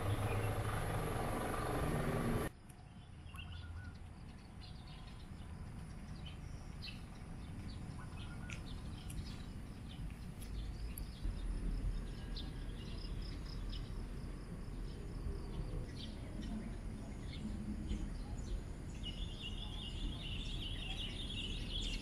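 Open-air ambience with birds chirping now and then over a low wind rumble. For the first two seconds or so a vehicle engine runs, and it stops abruptly. A steady high-pitched buzz joins near the end.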